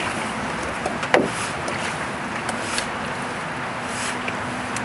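Paddle strokes in the water beside a Lincoln canoe, over a steady rush of wind noise, with one sharp knock about a second in.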